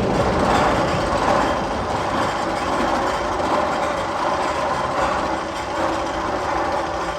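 Steady, rolling rumble like a train running on rails, swelling and easing slightly in level.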